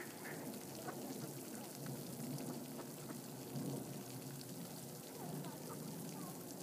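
Pond fountain's spray splashing steadily into the water, with the last of a run of mallard quacks right at the start.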